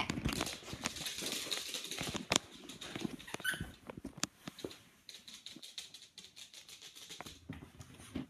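Bedding rustling and a phone being knocked about as it is handled, with many short thumps and taps and a brief high squeak about three and a half seconds in.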